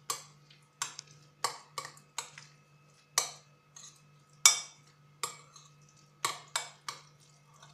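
A metal spoon knocking and clinking against a glass bowl while stirring a thick, wet pesto mixture. The clinks come irregularly, about every half second, and are loudest about three and four and a half seconds in.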